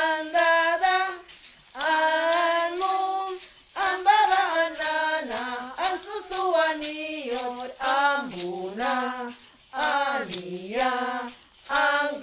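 A woman singing a Guna-language children's song, holding long notes and sliding between them, while she shakes a hand rattle in a steady beat about two or three times a second.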